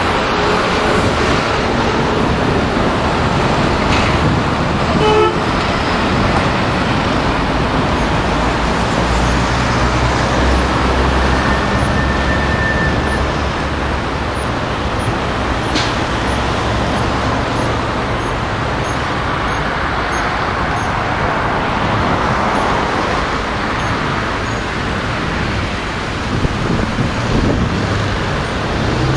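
Steady road and traffic noise heard from a moving vehicle on city streets, with a brief car horn toot about five seconds in.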